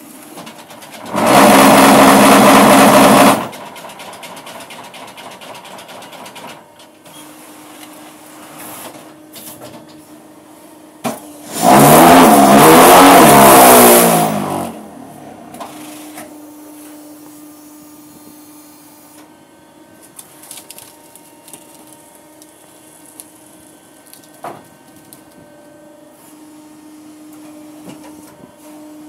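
Concrete paving block machine (Compact 5.1) running its cycle: two loud bursts of vibration of two to three seconds each, about a second in and again about ten seconds later, as the vibrating table compacts concrete in the paving-block mould. The second burst rises and falls in pitch. Between them the machine hums quietly, with a few clanks.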